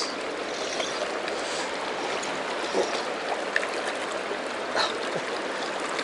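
Shallow mountain stream running steadily over a stony gravel bed, with a few faint brief clicks in the water noise.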